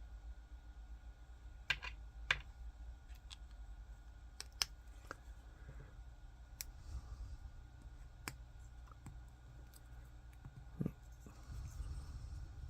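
Small 3D-printed plastic parts being handled and fitted together: scattered sharp clicks and taps a second or two apart, over a low steady hum.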